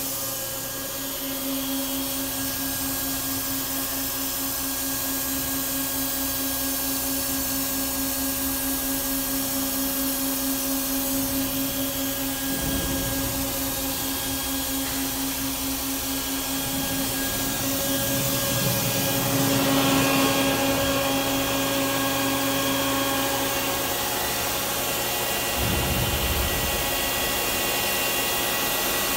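Steady hum and whir of a powered-up Daewoo Puma 2500LM CNC turn-mill center standing idle, not cutting: motor and fan noise with a few constant tones, swelling slightly about two-thirds of the way through.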